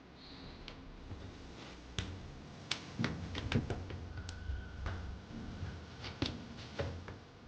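Irregular sharp clicks and light knocks from hands handling the parts of a washing machine during a lid-switch repair, about a dozen spread over several seconds, with a faint steady tone in the middle.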